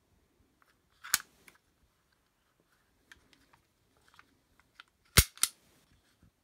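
Toy cap gun's action being worked by hand, the hammer cocking and snapping with sharp mechanical clicks: one sharp click about a second in, a few light clicks, then two loud snaps in quick succession near the end.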